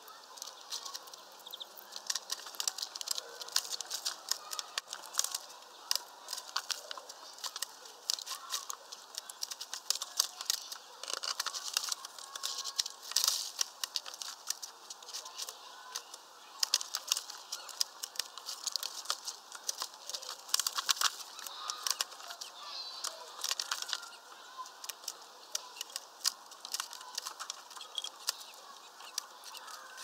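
A flock of European greenfinches at a mesh peanut feeder: dense, irregular clicks and taps from pecking and scrabbling, with wing flutters.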